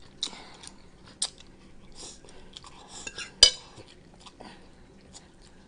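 A person eating close to the microphone: quiet chewing with scattered light clicks of cutlery against a plate, and one sharp clink about three and a half seconds in.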